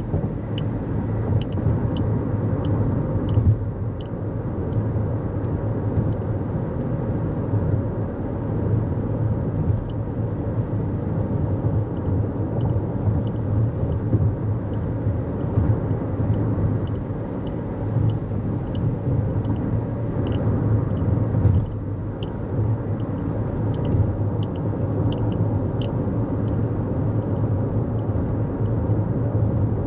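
Steady tyre and road rumble of a 2024 Toyota Corolla Cross cruising at highway speed, with faint regular ticks about two a second.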